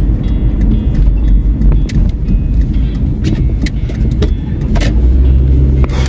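Car driving on a city street, heard from inside the cabin: a loud, steady low rumble of engine and tyres with scattered clicks and rattles. About a second before the end a steady low hum sets in.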